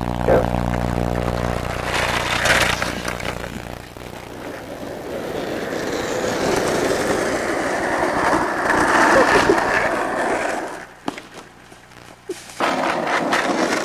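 Skateboard wheels rolling on asphalt, a rough rumble that grows louder as the board nears and then drops away suddenly. In the first two seconds a steady low hum is heard.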